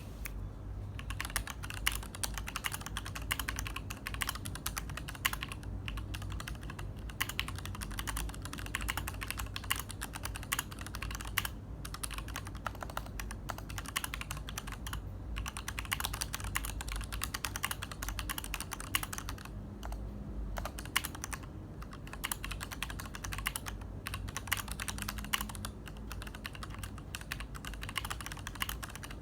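Tada68 mechanical keyboard with Gateron Black linear switches in an aluminium case being typed on continuously: a fast, steady clatter of keystrokes, broken by a few brief pauses.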